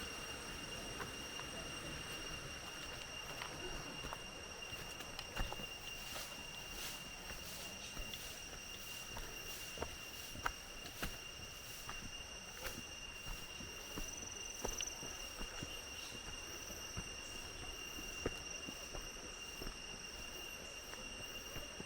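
Tropical forest insects droning, two steady high tones held throughout, with irregular footsteps on a dirt hiking trail clicking and crunching underneath.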